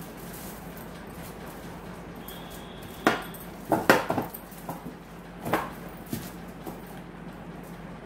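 Hands kneading a soft milk-powder and coconut dough in a steel plate, with a few short knocks and clinks against the metal about three, four and five and a half seconds in. A steady low hum underneath.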